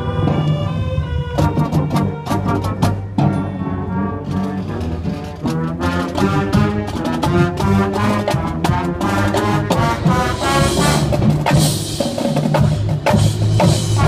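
Marching band playing a brass passage, sousaphones, trombones and trumpets over marching percussion, with the sousaphones carrying a strong bass line.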